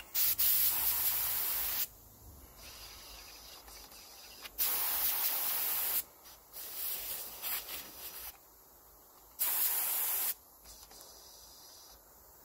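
Compressed-air paint spray gun hissing in three short blasts, the first two about one and a half seconds long and the last about a second. The gun is being cleaned out with its tip blocked by a rag, so the air blows the old paint back through into the cup.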